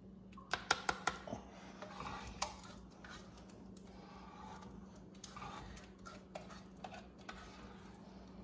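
A metal spoon clinking and scraping against an aluminium cooking pot as thick rice pudding is scooped out: a quick run of four sharp clinks about half a second to a second in, a stretch of scraping, then scattered lighter taps.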